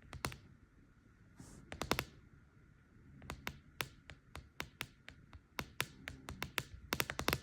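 Fingernails tapping and clicking on a hard surface: scattered sharp taps, a quick cluster about two seconds in, and a fast flurry of taps near the end.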